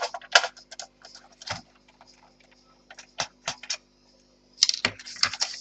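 Small sharp clicks and taps of a screwdriver and plastic laptop parts being handled while a forgotten screw is taken out, with a denser run of clicking and scraping near the end.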